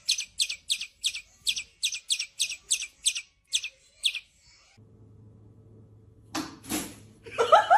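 Angry bird giving rapid, repeated short chirps, about five a second, which stop about four seconds in. A faint low hum and a few short noises follow near the end.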